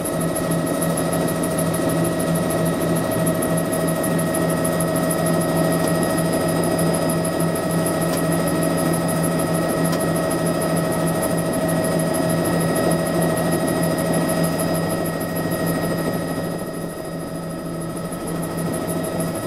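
Bell JetRanger helicopter's Allison 250 turboshaft engine and rotor running steadily on the ground, heard from inside the cabin as a constant whine over a low hum. The level dips briefly near the end.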